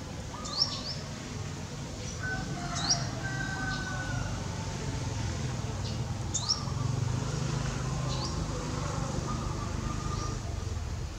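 Birds chirping: about five short, sharp, high chirps a couple of seconds apart and a few fainter whistled notes, over a steady low background rumble.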